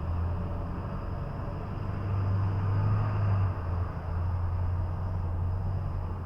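Steady low rumble of outdoor background noise, a little louder in the middle; no bells are ringing.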